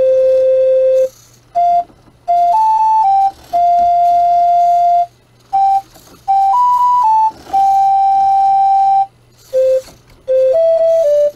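A simple one-voice electronic tune of steady, beep-like notes that step up and down one at a time, in short phrases with brief pauses between them.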